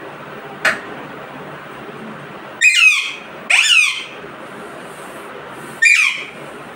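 Alexandrine parakeet calling: two loud calls close together a little over halfway through and a third near the end, over a steady background hiss.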